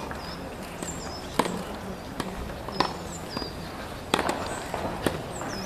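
Sparse sharp cracks about a second or so apart, over open-air background noise, with a small bird's high chirps sweeping downward in between.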